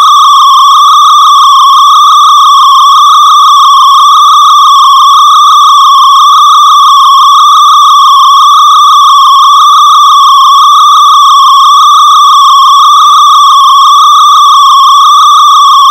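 Loud, unbroken high-pitched electronic drone from a modular synthesizer setup: a single held tone with a slight steady wobble in pitch, like an alarm.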